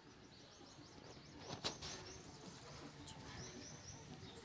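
Birds chirping faintly in the background, with one sharp click about a second and a half in.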